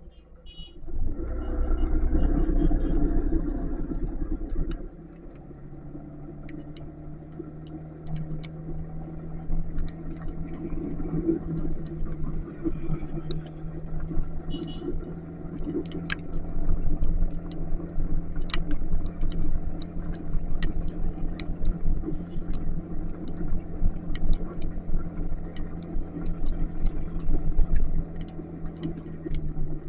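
Motorcycle engine running steadily while riding through rain, with a constant hiss and scattered sharp ticks. A loud low rumble swells about a second in and drops away around five seconds.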